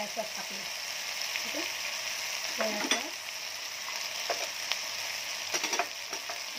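Chopped vegetables (capsicum, broccoli, onion) sizzling steadily as they stir-fry in hot oil in a nonstick kadai. A few light knocks are heard about three seconds in and again near the end.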